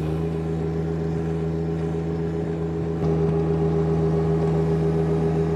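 Turbocharged three-cylinder diesel engine of a John Deere 1025R subcompact tractor running steadily under load while pushing snow with its front blade; it gets louder about three seconds in.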